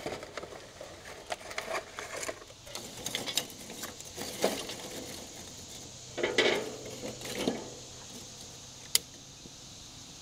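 Lump charcoal pieces clinking and scraping against each other and the metal grill pan as they are shifted by hand around fire starters. There are scattered light knocks, a busier clatter about six seconds in, and one sharp click near nine seconds.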